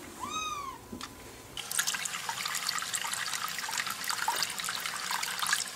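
A kitten gives one short meow near the start; then, about a second and a half in, a tap begins running steadily into a sink where a wet black kitten is being bathed.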